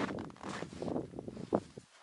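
Footsteps crunching in frozen snow at about −20 °C, with a few sharper crunches, stopping shortly before the end.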